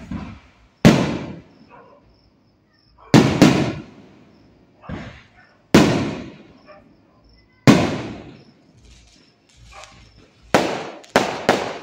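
Aerial firework shells bursting overhead: about eight loud bangs at uneven intervals, each trailing off over a second or so, with three in quick succession near the end.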